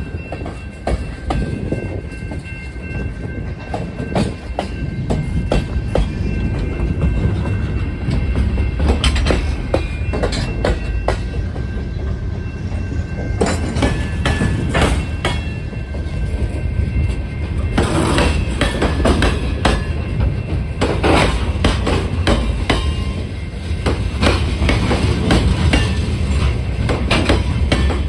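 Freight train cars rolling past, a steady low rumble with the wheels clacking over rail joints in quick clusters of knocks. A thin, steady high squeal from the wheels runs through the first half and fades out.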